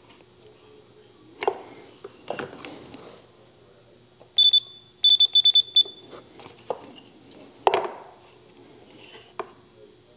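A high electronic beep about four seconds in, then a quick run of about five short beeps at the same pitch. Light clicks and taps of a steel ruler being set against the wing come before and after.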